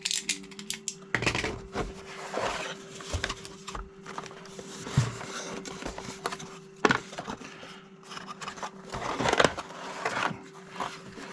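Battery packaging being opened and handled by hand: irregular rustling and scraping with sharp clicks and knocks.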